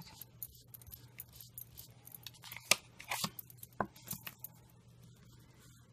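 Light dabbing and rustling of a foam sponge dauber working ink onto card stock along a paper mask, with a few small clicks and taps, the sharpest about two and a half seconds in.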